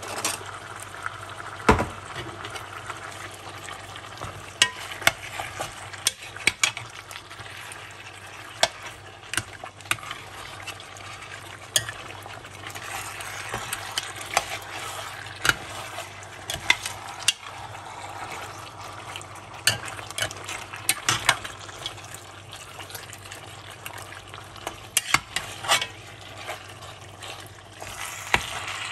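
Goat meat and tomato purée frying with a steady sizzle in an enamelled cast-iron pot while a spoon stirs them, with frequent irregular clicks and scrapes of the spoon against the pot.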